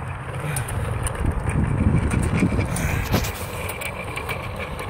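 Wind buffeting the microphone of a phone carried on a moving bicycle: an uneven low rumble that eases a little after a sharp click about three seconds in.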